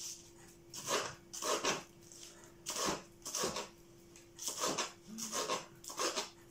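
Kitchen knife chopping lettuce on a wooden cutting board: a dozen or so quick, irregular chops, sometimes in pairs, over a faint steady hum.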